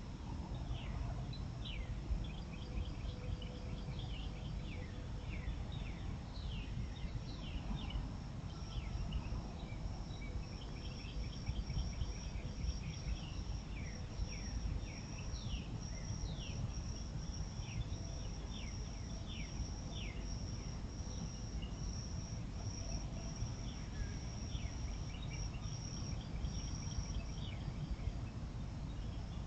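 Outdoor dawn insect and bird sounds: a high, evenly pulsing insect chirping that grows stronger partway through and stops near the end, with many short falling bird call notes. A steady low rumble runs underneath.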